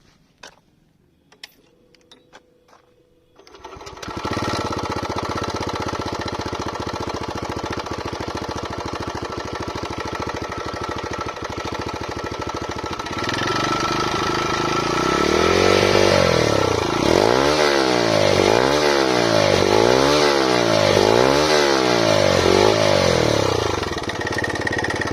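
Motorcycle with a custom cut-and-welded exhaust, dB killer fitted, starting up after a few clicks and running steadily at idle. It then revs harder, with about five quick throttle blips rising and falling, before settling back to idle near the end.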